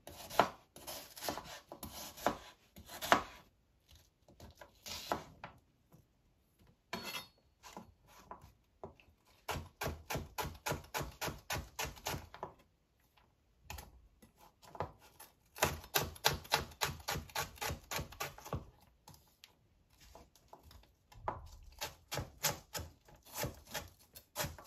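Kitchen knife chopping a red onion finely on a cutting board: runs of quick knocks, three or four a second, broken by short pauses.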